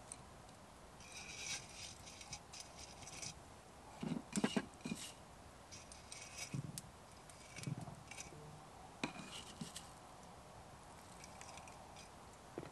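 Close, quiet handling sounds as pine needles and small dry chips are put into an open metal kettle: crisp rustling of the needles, a cluster of light knocks about four seconds in, and a few single clicks later.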